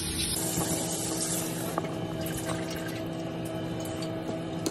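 A steady machine hum with a faint hiss that is brighter for the first second or so, and a few faint clicks.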